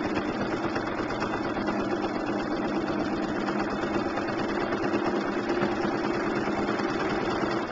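Domestic sewing machine running steadily at speed as it free-motion quilts, a motor hum with rapid needle strokes, stopping sharply at the end.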